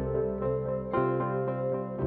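Instrumental background music: sustained keyboard-like notes, with new notes coming in about once a second.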